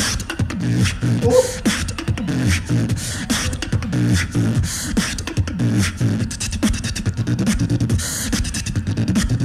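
Live battle beatboxing by one beatboxer: a continuous rhythmic pattern of deep bass tones under rapid sharp clicks and hits.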